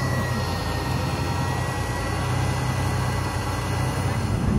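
Jeep Cherokee XJ engine running steadily at low revs, a low, even hum.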